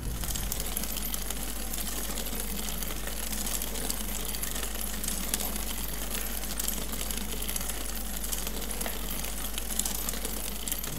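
Bicycle rolling along a tarmac lane, heard from a bike-mounted camera: steady tyre and road noise with rapid fine ticking and rattling from the bike.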